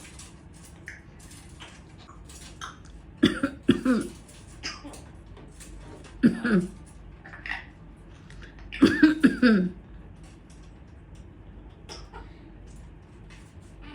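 Coughing in three short bouts about three seconds apart, from a person coughing and a pet parrot imitating the cough, with faint clicks in between.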